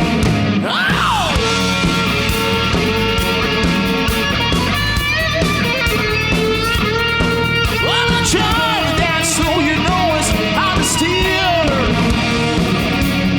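Live rock band playing an instrumental break, the lead electric guitar bending and sliding notes over bass and drums.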